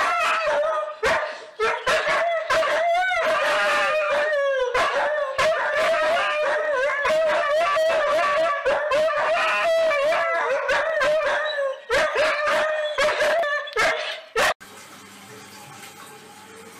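Two husky-type dogs howling together in long, wavering calls with short breaks. About two seconds before the end it cuts to a much quieter steady hum from a front-loading washing machine running.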